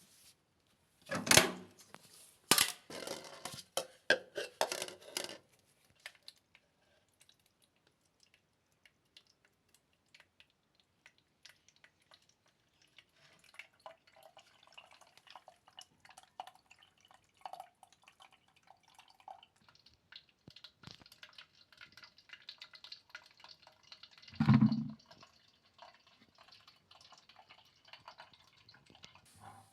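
Water trickling and dripping as a washing machine that won't drain is emptied by hand. There are several loud clattering knocks near the start and a single heavy knock toward the end.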